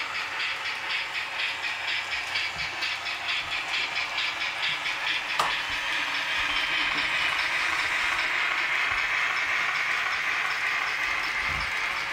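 Model steam locomotive's sound decoder playing rhythmic chuffing through its small loudspeaker as the TT-scale train runs, giving way about halfway through to a steadier hiss. One sharp click comes just before the change.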